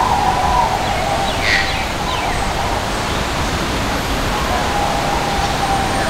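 Steady rushing outdoor ambience with faint, thin background tones, and a short high bird call about a second and a half in.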